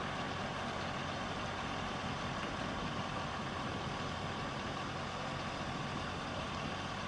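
An engine idling with a steady low hum over an even background hiss.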